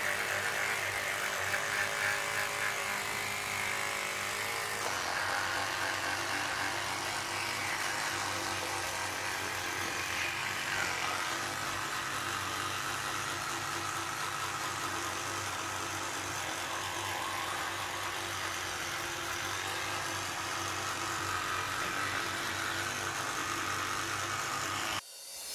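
Electric toothbrush running with a steady buzzing hum while held to a cat's teeth. The hum cuts off suddenly near the end.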